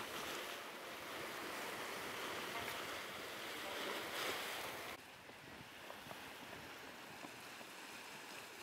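Small sea waves lapping and splashing against a concrete seawall, a steady wash of water. About five seconds in it cuts to a quieter, fainter sea hiss.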